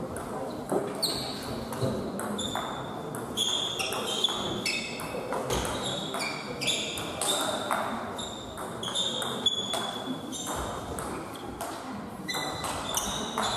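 Table tennis play: the ball clicking off bats and table, shoes squeaking in short high chirps on the hall floor, over a murmur of spectators.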